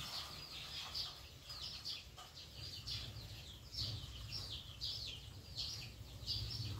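Chickens calling in the background: a steady run of short, high-pitched peeping calls, one or two a second, over a low steady hum.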